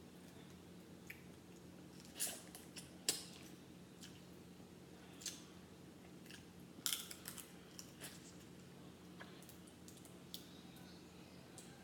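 Crab leg shells being cracked and snapped apart by hand: a scattering of sharp cracks and clicks, the loudest about two, three and seven seconds in, over a faint steady hum.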